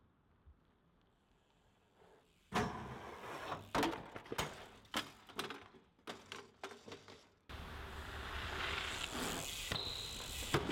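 BMX bike and rider crashing: a string of sharp knocks and metal clatter over a few seconds after a near-silent start. Then a sudden cut to a steady rushing noise.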